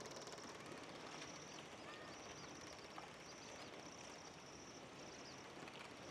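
Faint, high insect trill that comes and goes in bursts of about a second, with a few faint bird chirps.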